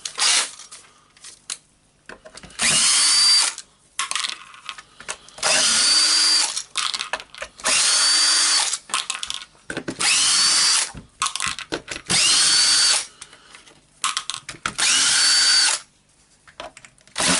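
Cordless power screwdriver backing out housing screws in about six short runs of roughly a second each, each run starting with a rising motor whine. Small clicks and taps of the screws and tool come between the runs.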